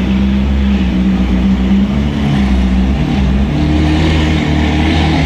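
Ferrari sports car's engine running steadily at idle, a deep hum with a slight rise in pitch about halfway through.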